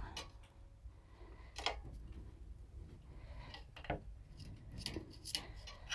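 A few light, scattered clicks and taps of small parts being handled.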